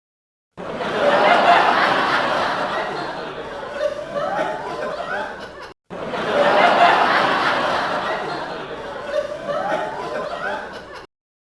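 People laughing and chattering over a few seconds of noisy background. The same passage plays twice in a row, with a short break of silence between.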